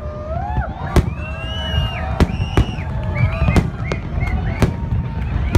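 Aerial fireworks shells bursting in a series of sharp bangs, roughly one a second, over a steady low rumble from the display.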